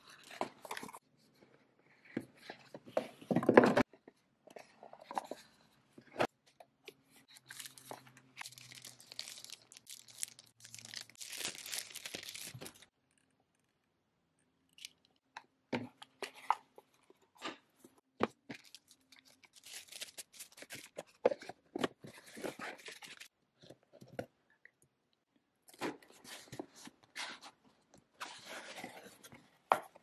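Cardboard boxes and paper and plastic wrapping being handled, opened and unwrapped: irregular scrapes, taps and rustles in bursts, the loudest about three and a half seconds in, with a short pause near the middle.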